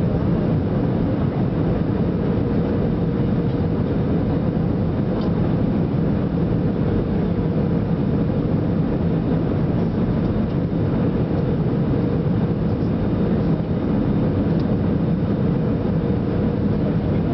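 Steady cabin roar inside an Airbus A320-family airliner on approach, heard from a window seat beside the engine: the running engines and the rush of air over the fuselage, with a faint steady hum beneath.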